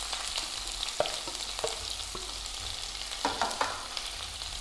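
Sliced onions sizzling as they hit hot oil in a nonstick pan, with a slotted spatula knocking and scraping a few times as the onions are pushed in.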